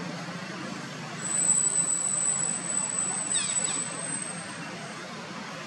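Outdoor ambience with a steady low hum. About a second in, a thin, steady high-pitched whine starts and holds for about three seconds before fading, and a few quick descending chirps come midway.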